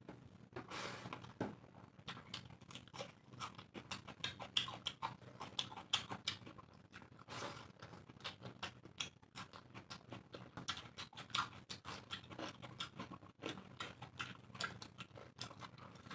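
Close eating sounds of rice and chicken curry eaten by hand: fingers mixing the wet rice and curry on the plates, and chewing and lip smacking, heard as a steady run of small wet clicks and smacks.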